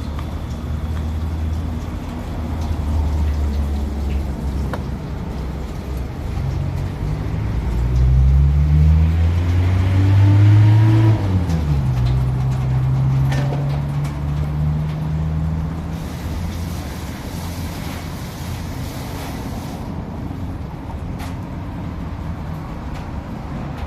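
An engine running steadily, then revving up for a few seconds about a third of the way in and dropping back to a lower, steady speed.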